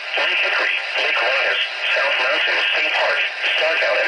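Speech only: a text-to-speech weather-alert voice reading a flash flood warning, with the thin sound of a radio broadcast.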